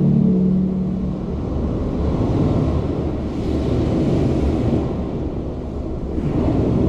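A large crowd applauding and cheering in a big hall as the ensemble's last held chord fades away in the first second.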